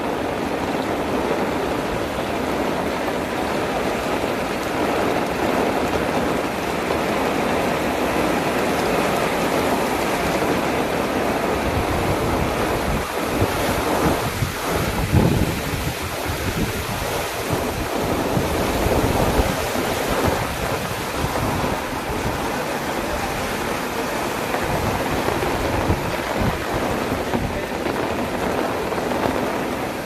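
Heavy rain pouring steadily in strong wind. From about halfway through, uneven low rumbling gusts come and go.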